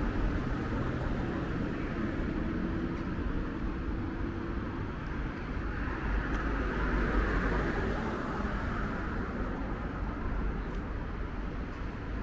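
Road traffic running along a city street, with one vehicle passing and growing louder about six to nine seconds in.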